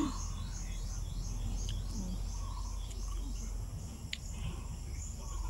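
Garden ambience: small creatures chirping in a high, rapid run of short notes, a few a second, over a low steady background hum, with one sharp click about four seconds in.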